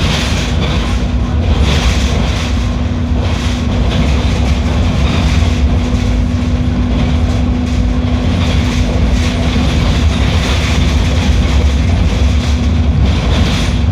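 Mercedes-Benz OF 1721L BlueTec 6 bus running, a loud, steady low engine drone and rumble with rattling. A held hum fades out about ten seconds in.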